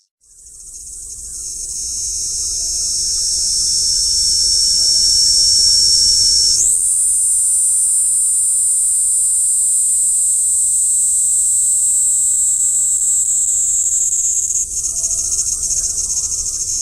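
A cicada singing: a loud, high-pitched continuous buzz that swells up from nothing over the first few seconds, then jumps higher in pitch about seven seconds in and holds there.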